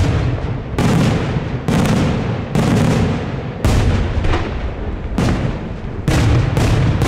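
Daylight fireworks: aerial shells bursting overhead in a rapid string of loud bangs, roughly one a second, with a low rumbling echo between them.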